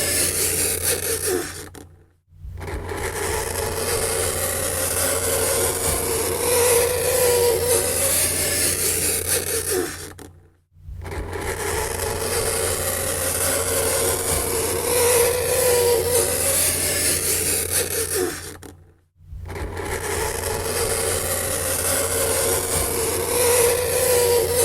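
Fingernails scraping on a chalkboard: a continuous scratchy scrape with a wavering squeal, breaking off briefly three times, about every eight and a half seconds.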